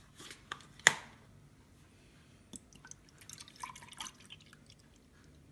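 Milk being measured out: a sharp knock about a second in, then scattered small drips and light taps against a container.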